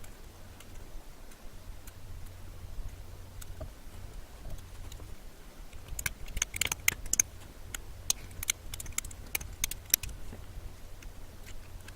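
Typing on a Clueboard mechanical keyboard with jailhoused Cherry MX Blue switches, their click silenced by spacers in the click jackets so only the tactile bump and keycap strikes are heard. A few scattered keystrokes, then a quicker, louder run of typing from about halfway in for some four seconds, over a low steady hum.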